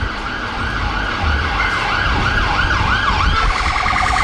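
Ambulance VW Tiguan rapid response car's electronic siren sweeping up and down, each sweep faster than the last, then switching about three and a half seconds in to a fast pulsing tone, over traffic rumble.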